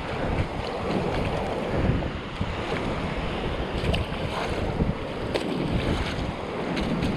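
Strong wind buffeting the microphone with a low rumble, over shallow surf washing across wet sand.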